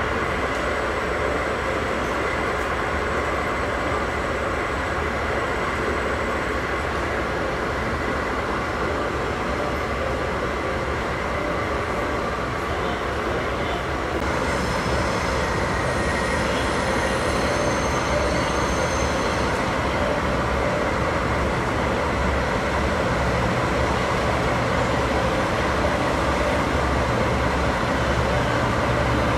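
Steady rumble of diesel trains standing at a station, engines idling. About halfway through, the low rumble grows as a diesel railcar comes in alongside, and a high squeal sounds for about five seconds.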